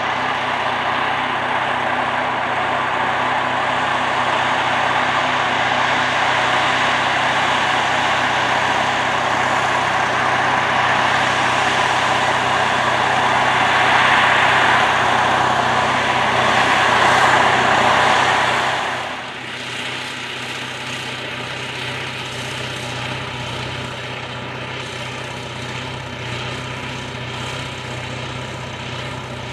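YaMZ-238 V8 diesel of a K-700 tractor working hard under load, pulling a field cultivator, with the engine freshly repaired over the winter. The sound grows louder as the tractor nears and passes, then drops sharply about two-thirds of the way through to a quieter, steady hum.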